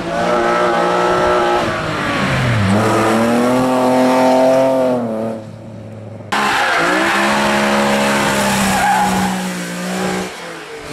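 Hill-climb racing car engines passing through tight bends. The first car's revs drop about two seconds in as it slows for the corner, then climb again as it accelerates hard out of it. After a sudden cut, a second car runs through at high revs and fades as it pulls away.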